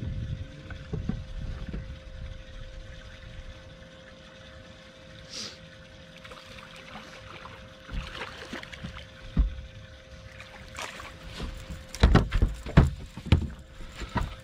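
A hooked striped bass splashing at the surface beside a bass boat and being swung aboard, with several loud knocks and thumps against the boat near the end, over a steady faint hum.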